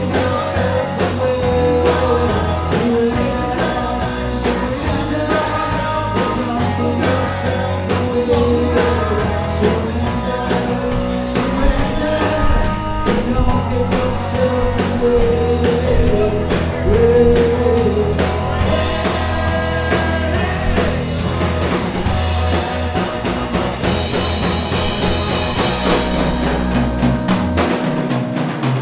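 Live rock band playing a song: electric guitars, bass guitar and drum kit, with a lead vocal.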